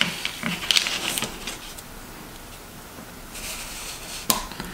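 Small clicks and taps of metal tweezers and a small plastic N-scale turnout part being handled, with a single sharp click near the end.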